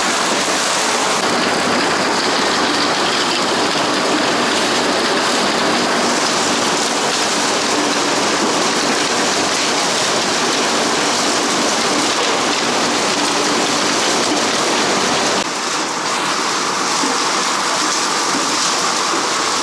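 Crop sorting line with its conveyors running: a loud, steady, dense rattle of produce tumbling along the belts and grader, under a faint machine hum.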